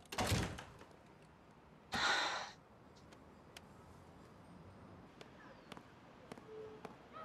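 A woman sighing heavily twice: two short breathy exhales about two seconds apart.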